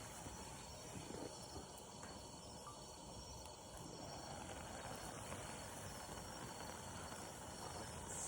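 Steady high-pitched insect chirring, like crickets, over a faint outdoor hush, with a few faint clicks.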